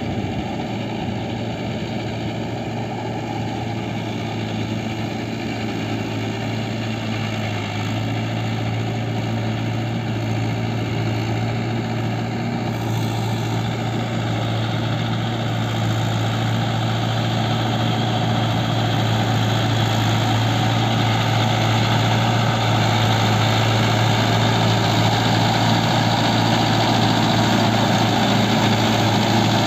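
Mahindra Yuvo 575 DI tractor's 45 hp diesel engine running steadily while it pulls a rotavator through wet paddy mud, with a deep steady hum, growing gradually louder as the tractor comes closer.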